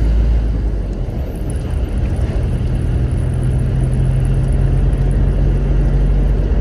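Steady engine hum and road noise of a car driving, heard from inside the cabin. A low, even drone holds from about a second in.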